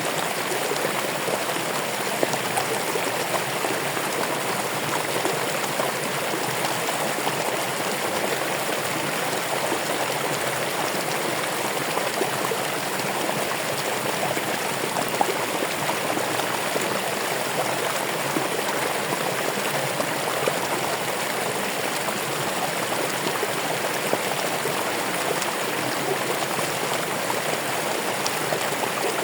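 Running water: a stream flowing steadily over stones, an even splashing and babbling with small droplet ticks throughout.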